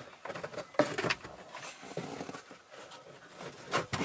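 Cabin air filter being pushed and worked into its plastic housing: light scraping and rustling with a few sharp clicks and knocks, the loudest about a second in and more near the end.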